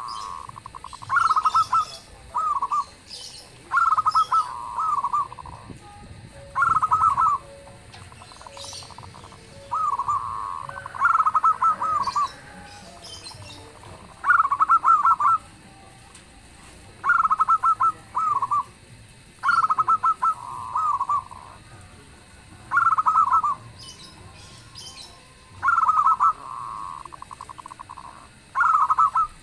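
Zebra dove cooing: repeated short phrases of quick stuttering notes ending in a longer held coo, about every two to three seconds.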